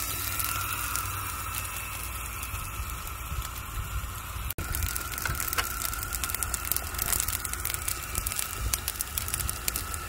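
Steaks sizzling on a grill: a dense, steady crackle and spatter, with a steady high whine underneath and a brief dropout about halfway.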